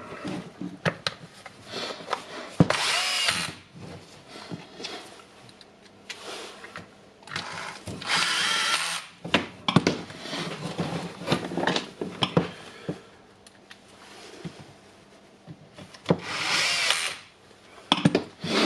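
A power tool motor run in three short bursts of about a second each, among clicks and knocks of parts and tools being handled.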